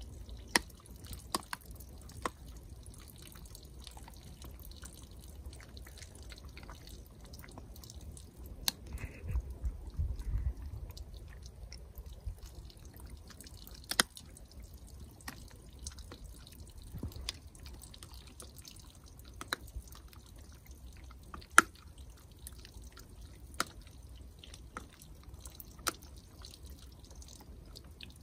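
A dog gnawing on a bone, with scattered sharp cracks and clicks a second or a few seconds apart, the sharpest about three quarters of the way through. A low rumble swells briefly about a third of the way in.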